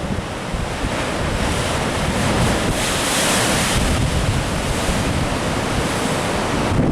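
Ocean surf washing in, with wind buffeting the microphone as a low rumble; a wave breaks more loudly about three seconds in.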